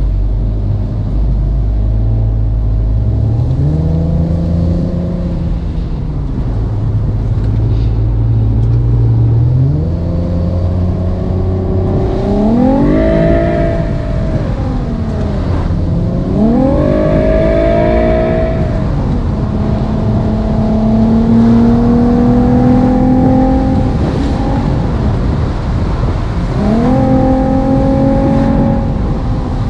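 App-generated sports-car engine and exhaust sound following the car's driving. The note climbs in pitch and drops back several times as the car accelerates and shifts or lifts off, with the two strongest climbs around the middle and a steadier cruising note later on.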